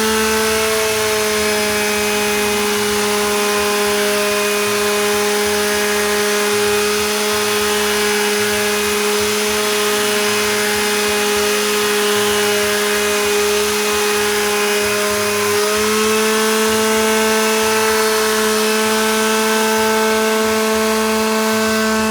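Electric power tool motor running with a steady, high whine. Its pitch sags slightly about a second in and picks back up near the three-quarter mark.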